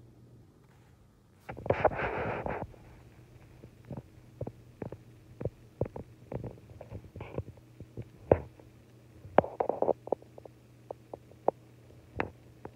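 Body noises from a sleeping Chihuahua: a breathy snuffle about a second and a half in, then a run of small irregular clicks and gurgles, with a second snuffle near ten seconds.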